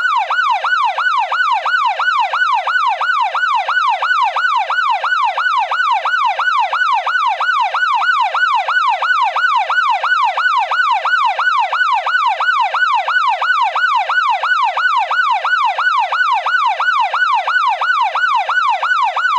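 Police car siren on its fast yelp setting, its pitch sweeping up and down about four times a second in an even, unbroken repeat.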